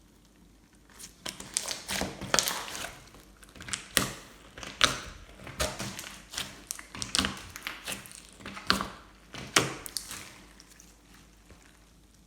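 Glossy slime squished and kneaded by hand, giving an irregular run of sticky pops, clicks and crackles from about a second in until near the end.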